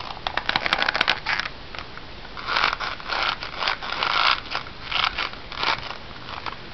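Hands handling a newly made, freshly oiled leather holster: a quick run of clicks and taps, then bursts of leather rubbing and scraping as it is turned and worked in the hands.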